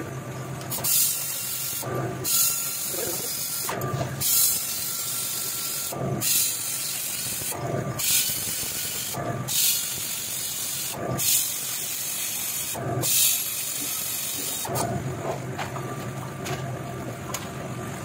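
Loud hissing in repeated bursts, each about one and a half to two seconds long and starting with a knock, broken by short gaps, over a steady low hum.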